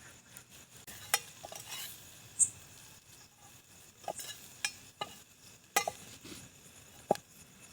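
A spoon stirring spices and onions frying in oil in a metal pot, with several sharp clinks of the spoon against the pot over a faint sizzle.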